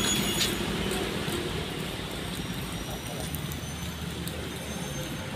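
Steady rain falling on pavement and a wet road, a constant hiss.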